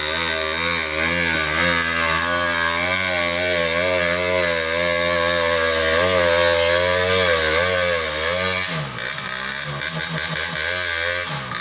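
Small motorcycle engine labouring under a heavy load of big mahogany logs, its pitch wavering up and down as the throttle is worked. About nine seconds in the engine note drops to a lower, unsteady sound.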